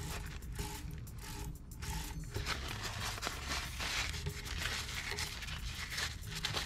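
Paper towel rubbing and scrubbing around a pool cue ferrule and freshly glued jump tip, wiping off excess CA super glue: a dry, scraping rub with many small ticks.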